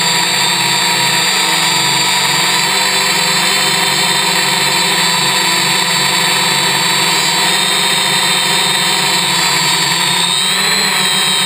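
Electric motors and propellers of a Y6 multicopter drone running in flight: a steady, many-toned whine over a rushing hiss, whose pitch shifts briefly near the end.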